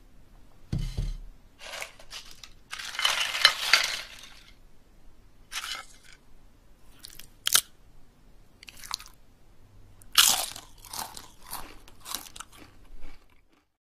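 Stop-motion foley sound effects: a low thud, then rustling crunches, a few sharp clicks, and a last run of crunching near the end.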